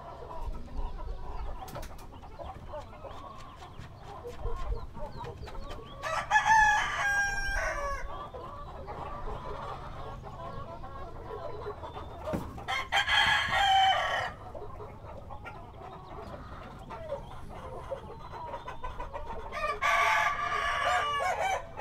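Flock of chickens clucking steadily, with a rooster crowing three times, about six seconds apart, each crow lasting about two seconds; the last comes near the end.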